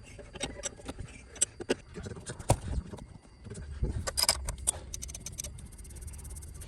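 Metal hand tools and engine parts clinking and knocking in short separate strikes, with a fast run of small clicks from about five seconds in.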